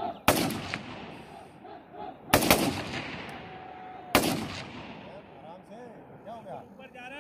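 Rifle fire on a shooting range: three sharp shots about two seconds apart, each followed by a long echoing tail.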